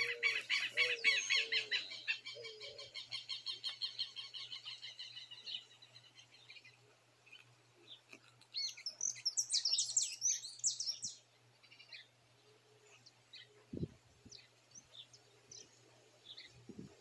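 Birds singing: a fast run of high repeated notes for the first five seconds or so, with a few lower notes under it at the start, then another burst of chirps about two-thirds of the way in and scattered faint chirps after. A single low thump comes near the end.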